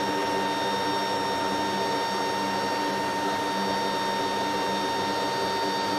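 Steady turbine whine and rushing noise of the MC-130J Commando II's turboprop engines, heard from inside the cargo hold with the rear ramp open; a high whining tone sits over the rush.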